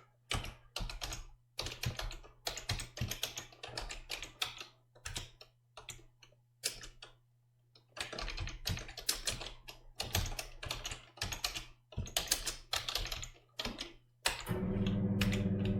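Computer keyboard typing in quick bursts of keystrokes with short pauses. Near the end, a Dooya electric curtain motor starts up and runs with a steady hum, driven by the command just sent.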